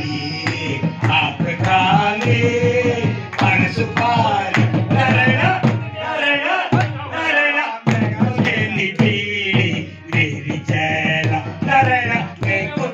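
A group of men singing an Uttarakhandi Holi song to a harmonium, with a drum and hand-clapping keeping a steady beat.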